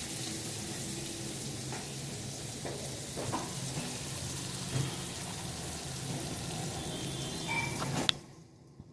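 Spices and curry leaves sizzling steadily in hot ghee in a kadai, with a few light spoon scrapes, as the tempering roasts. The sizzle cuts off suddenly after a click about eight seconds in.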